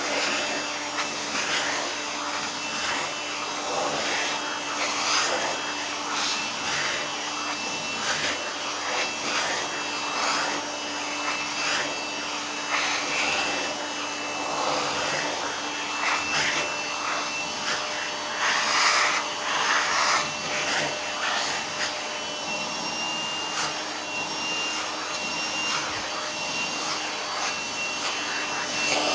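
Vacuum cleaner running steadily with a constant motor hum and whine, being run over a cat's fur. Its noise swells and dips every second or two as the nozzle moves.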